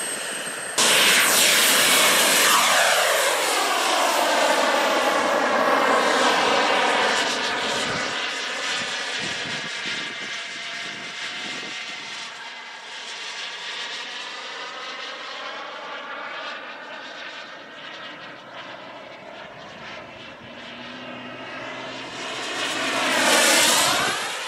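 Radio-controlled model jet flying. A loud engine sound falls in pitch as the jet passes and then fades into the distance. Near the end it swells again on another close pass, the pitch sweeping up and then down.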